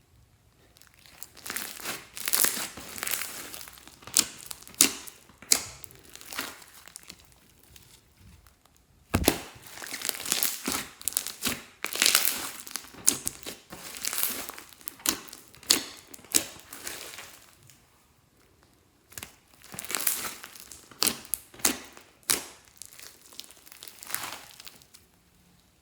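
Glossy slime being squished, pressed and stretched by hand, giving runs of sharp sticky clicks and pops in spells with short pauses between them. A single heavier thud about nine seconds in.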